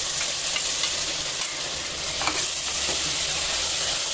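Ground spice-and-garlic paste sizzling steadily as it hits hot mustard oil and fried onions in an aluminium pressure cooker, stirred with a wooden spatula; a light scrape a little after two seconds in.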